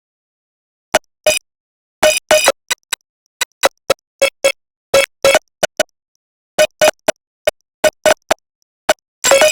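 Loud clicking while editing: about two dozen short, sharp clicks in irregular runs and pairs, with dead silence between them. Music starts right at the end.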